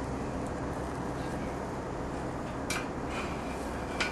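Two brief clicks, about two and a half seconds and four seconds in, as hardware is handled on a metal post, over steady outdoor background noise.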